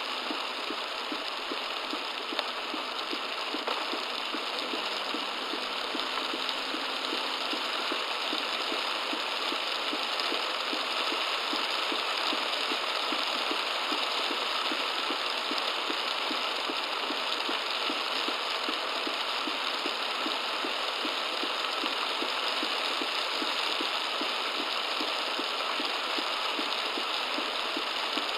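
Heavy downpour pelting a car, picked up by a dashcam inside it: a dense, steady hiss with a regular pulsing beat, about two or three a second, that grows stronger about four seconds in.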